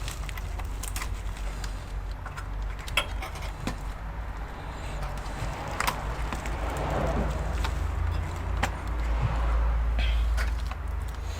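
Scattered light clicks and a stretch of scraping from hands working on the all-in-one's internal parts, over a steady low hum.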